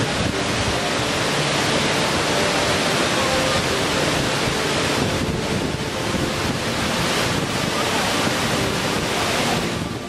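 Waterfall: white water rushing steadily down rock cascades, a dense, even rushing noise throughout.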